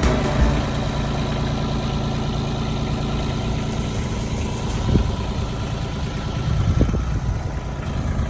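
An engine idling steadily, with a few brief knocks about five and seven seconds in.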